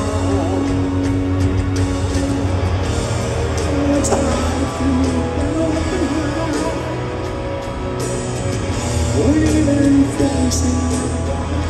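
Live rock band playing a slow piano ballad, heard from the stadium crowd: piano, bass and drums under singing and a lead electric guitar line.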